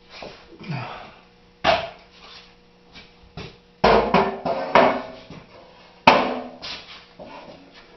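Hammer strikes on a homemade welded-steel anvil: a handful of sharp blows, each dying away quickly, the loudest about four and six seconds in.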